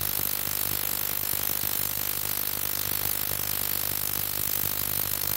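Ya Xun ultrasonic cleaner running with its stainless steel tank full of water: a steady low hum under a constant high hiss.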